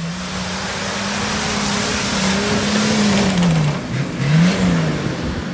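Nissan Patrol GR engine revving under load as the 4x4 climbs a steep grassy slope. The pitch rises and holds, drops about four seconds in, then rises briefly again and falls off.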